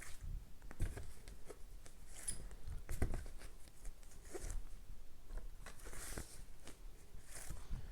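Paper flashcards being handled and flipped through: soft papery swishes and light taps, coming irregularly.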